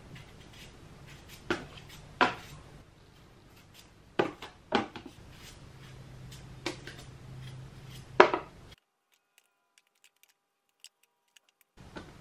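Kitchen knife peeling a raw potato by hand: about six sharp scrapes as strips of skin are shaved off, then a sudden drop to silence for about three seconds near the end.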